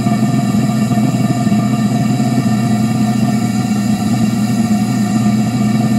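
Propane-air burner firing steadily in a homemade turbine combustion chamber: a loud, even roar with a constant hum under it.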